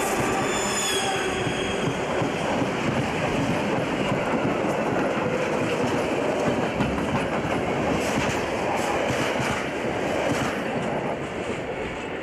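Freight train wagons rolling past close by: steady rolling noise from the wheels on the rails, with knocks from the wheels. A high tone falls in pitch in the first second, and the sound fades near the end as the last wagons go by.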